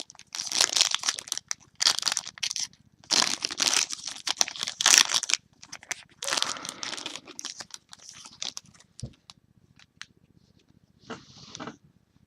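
Trading card pack wrapper being torn open and crinkled. It comes in several bursts of crackling over the first seven seconds, then a few light clicks and one last short crinkle near the end.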